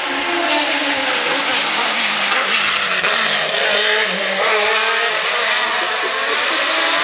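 A hill-climb race car's engine at full throttle going past, loud and continuous, its pitch rising and dropping repeatedly as it is revved through the gears.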